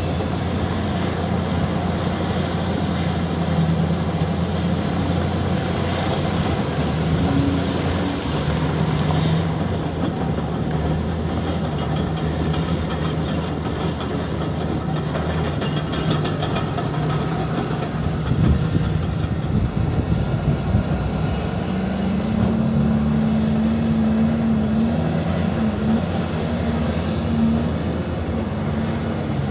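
Diesel engines of large mining haul trucks and heavy earthmoving equipment running, a steady low rumble. About two-thirds of the way through, one engine revs up and holds a higher pitch as a truck pulls away.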